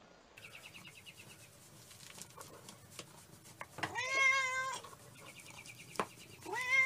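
Domestic cat giving two long, drawn-out meows, each held at a steady pitch for about a second, the second starting near the end.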